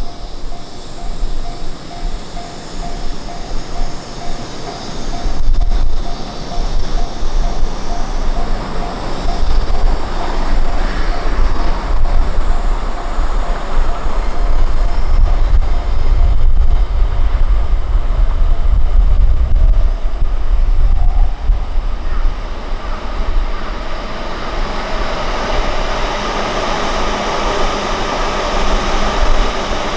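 A train running past on the rails with a steady rumble, while a level-crossing warning bell rings as a steady repeated tone. The bell stops about two-thirds of the way in, and the rail noise turns brighter and hissier toward the end.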